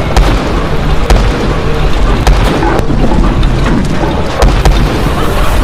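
Road roller running over tractor inner tubes: a loud, heavy rumble with many short knocks throughout, and no single standout bang.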